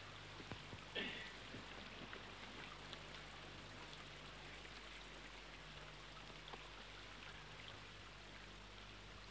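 Near silence: a faint steady hiss with a low hum from an old film soundtrack, and a short faint sound about a second in.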